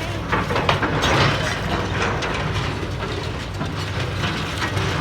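Excavator diesel engine running with a steady low hum, while scrap metal clanks and scrapes in many sharp knocks as a grapple claw handles it.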